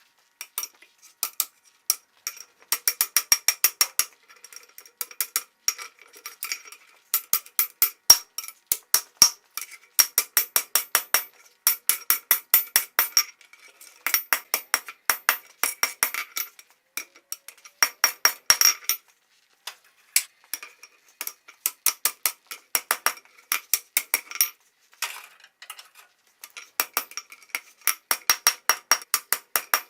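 Hand hammer striking hot coil-spring steel on an anvil, each blow ringing. The blows come in quick runs of about four or five a second, broken by short pauses.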